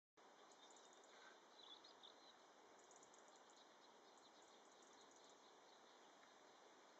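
Near silence outdoors, with a few faint high bird chirps about one and a half to two seconds in.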